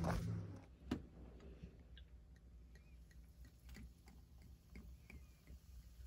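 Champagne being poured from the bottle into enamel camp mugs: quiet, with a sharp click about a second in, then scattered faint ticks and small pops over a low steady hum.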